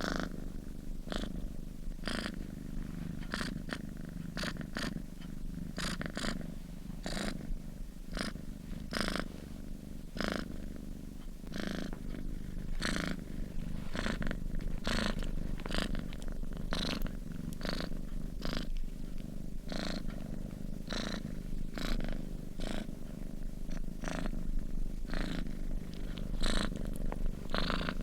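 Domestic cat purring while asleep: a steady low rumble, with brief higher pulses about once or twice a second.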